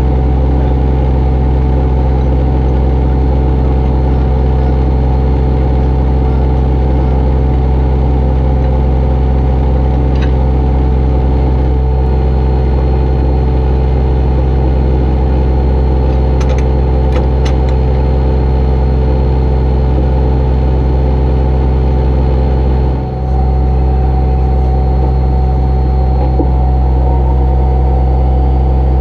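Wrecker's engine running steadily at idle, a constant low hum close to the microphone, with a few light clicks.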